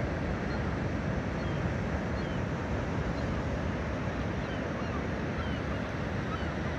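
Steady surf and wind noise, with many faint, short seabird calls scattered over it from a large colony.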